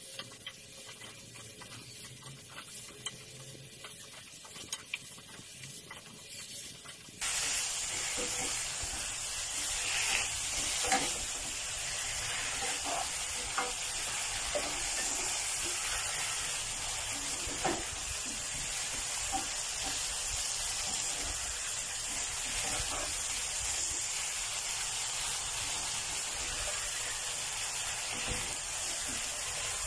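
Chicken breast and cucumber stir-frying in a pan, turned with a spatula that scrapes and taps against the pan. The sizzle is quieter at first and jumps to a much louder, steady hiss about seven seconds in, with sharp spatula knocks now and then.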